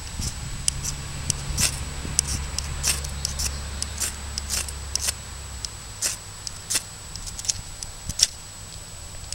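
Ferrocerium rod being scraped with a striker again and again, a string of short, sharp scrapes at about two a second, throwing sparks to light fat wood shavings.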